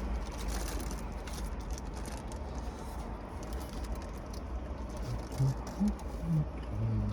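Steady low rumble inside a parked car, with a few short, low, soft sounds near the end.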